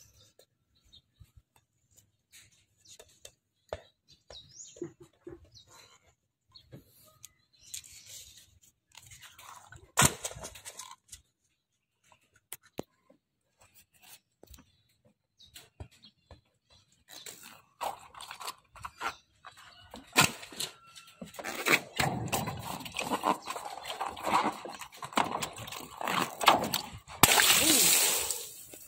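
Rubber balloons being handled and rubbed, with scattered squeaks and knocks, a sharp crack about ten seconds in, and dense squeaking and rustling over the last ten seconds that ends in a loud noisy burst.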